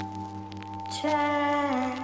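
Slow background music of long held notes: one note fades, and a new note comes in about a second in, sliding lower near the end.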